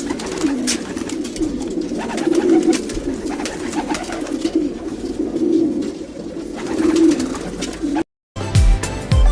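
Several homing pigeons cooing together in an overlapping, continuous chorus, with scattered light clicks and taps. About eight seconds in, it cuts off for a moment and music with a beat begins.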